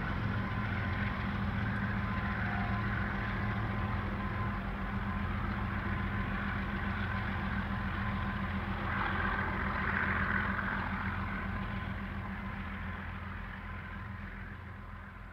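Diesel locomotives of a heavy coal train running, with a steady low engine drone over rail and wheel noise. The sound fades away over the last few seconds.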